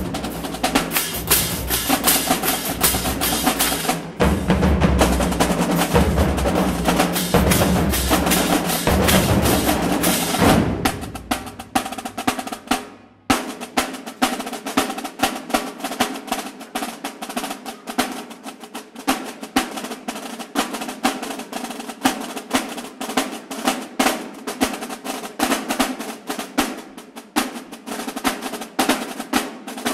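Marching band drumline playing a cadence in a gym. For the first ten seconds or so, deep bass drums and crashing cymbals play with the snares. After a brief break a little past the middle, the snare drums carry on alone in a fast, even pattern of sharp strokes.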